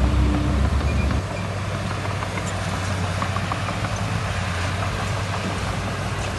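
Heavy diesel engine of earthmoving machinery running, with a deep low rumble that eases about a second in and then carries on steadily.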